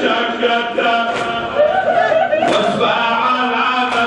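A group of men chanting a raddadiya, a Shia call-and-response lament, in unison. A sharp slap falls about every second and a half, in time with the chant.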